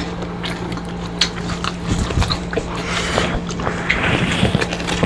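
Eating sounds of crispy fried tilapia and rice eaten by hand: chewing, crunching and lip smacks with scattered small clicks. A steady low hum runs underneath.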